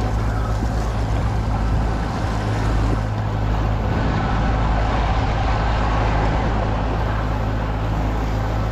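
Boat's engine running steadily underway: a constant low drone under an even rush of wind and water.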